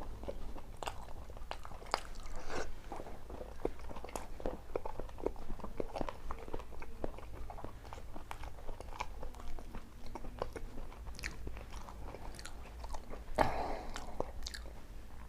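A person chewing and biting food close to the microphone: irregular wet mouth clicks with occasional crunches, and one louder, longer burst near the end.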